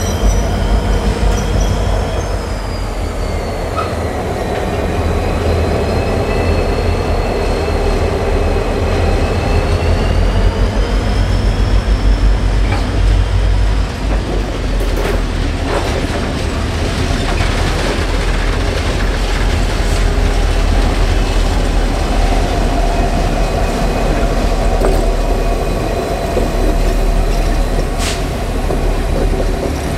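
A light-engine consist of seven Pacific National diesel-electric locomotives (XR, X and G classes) rolling slowly past on curved track. Their engines give a steady deep rumble, and over the first half there are wavering high-pitched squeals from the wheels. After that comes a steadier engine drone.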